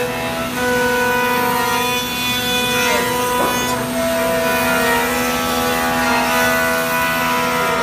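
CNC router spindle cutting a wooden air-rifle stock: a steady whine of several held tones over the cutting noise, shifting pitch slightly a couple of times as the load changes.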